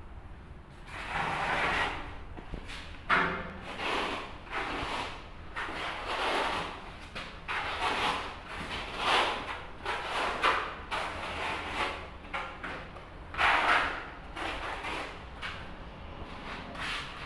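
Steel trowel scraping wet tile adhesive across a floor in repeated rough strokes, roughly one a second, with a sharp knock about three seconds in.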